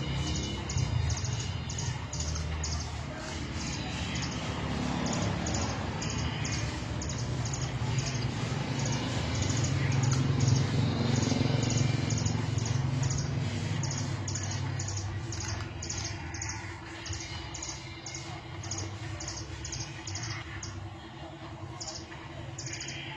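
White-rumped shama (murai batu) singing a long run of rapid, evenly repeated high notes, about two to three a second, over a low background rumble.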